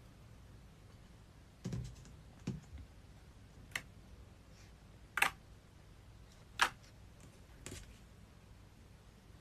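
Clear slime being handled, giving off about six sharp, irregular clicks and pops over several seconds; the two loudest come a little past the middle.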